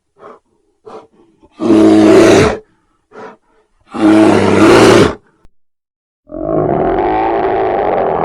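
Bear roaring twice, each a loud roar about a second long, with short breathy huffs before and between them. A longer, steady sound starts near the end and carries on.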